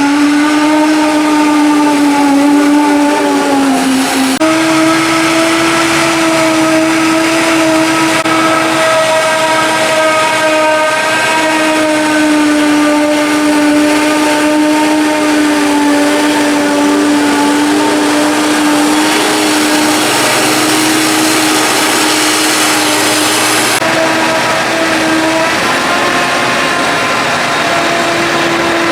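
Forage harvesting machinery running steadily under load while chopping green rye: a steady high-pitched whine over an engine drone, changing abruptly about 4 seconds in and again near 24 seconds.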